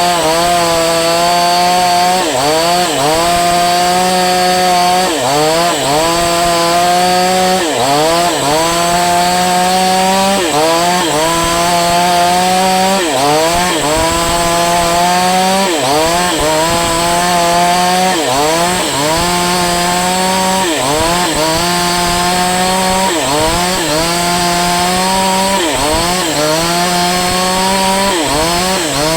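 Falcon Evo 9000 two-stroke chainsaw running at high revs, its pitch dipping briefly and climbing back about every two and a half seconds.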